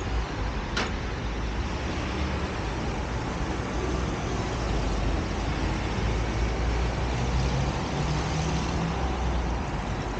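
Steady road-traffic noise with a deep rumble, and an engine hum from a passing vehicle swelling briefly about seven seconds in.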